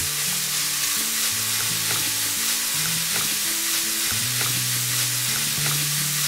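Ground pork sizzling steadily in its own fat in a nonstick frying pan, stirred and broken up with a slotted spatula and a spoon, with light scrapes and ticks of the utensils against the pan.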